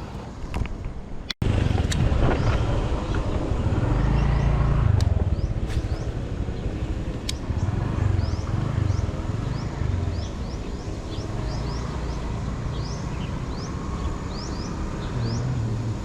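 Steady low rumble of road traffic, with short high bird chirps repeating over it from about four seconds in. The sound drops out abruptly for an instant about a second and a half in.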